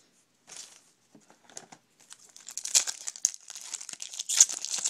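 Foil wrapper of a Topps Chrome baseball card pack crinkling and tearing as it is ripped open by hand. A few faint crackles come first, then dense crinkling from about halfway through.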